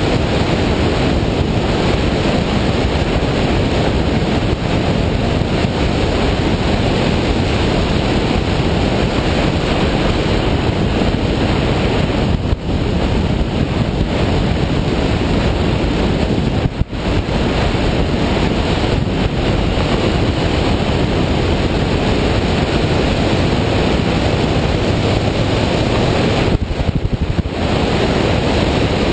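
Loud steady wind rush on the microphone of a camera riding on a moving motorcycle, the rider's own speed causing it, with a short dip about 12 seconds in and again about 17 seconds in.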